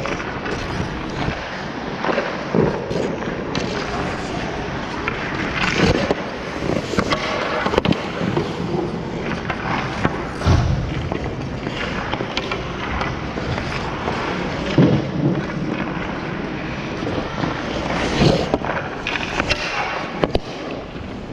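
Hockey skates scraping and carving on rink ice, with sharp knocks of pucks striking sticks, pads and boards every few seconds.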